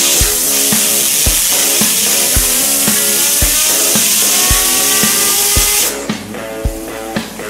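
Compressed-air blow gun hissing loudly at a fidget spinner, with a whine that rises in pitch as the spinner speeds up; the air cuts off about six seconds in. Background music with a steady beat plays throughout.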